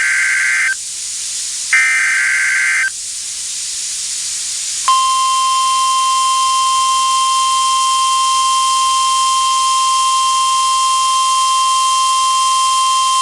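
NOAA Weather Radio SAME alert data: two buzzy digital bursts of about a second each, a second apart. About five seconds in comes the 1050 Hz warning alarm tone, a loud steady single-pitched tone, which signals that a warning (here a tornado warning) is about to be read.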